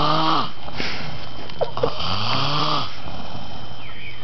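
A man passed out drunk, snoring in his sleep: two pitched snores about two seconds apart, with a breathy exhale between them.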